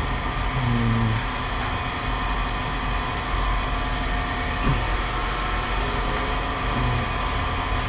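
Heavy scrap-yard machine's engine running steadily, a constant drone with a layered hum.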